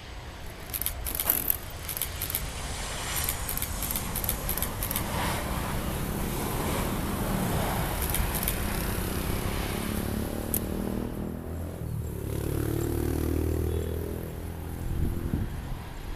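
Jet engines of a Boeing 737-800 airliner landing, mixed with cars passing on the road alongside the airport fence. A run of sharp clicks and rustling on the microphone in the first few seconds, and a pitched engine tone that bends up and down about ten seconds in.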